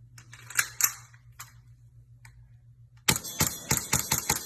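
A couple of sharp clicks, then about three seconds in a gun fires a rapid string of about seven shots over a second and a half.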